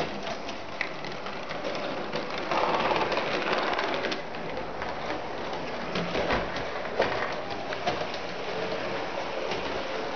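1:24 scale model tram running along layout track: a steady rushing motor-and-wheel noise with scattered clicks and rattles.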